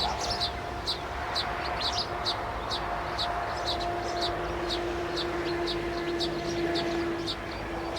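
Small birds chirping: short high chirps repeating about three times a second, over a steady humming drone.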